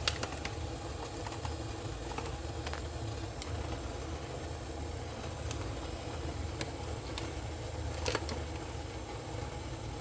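Steady low mechanical hum, with a couple of faint clicks near the start and about eight seconds in.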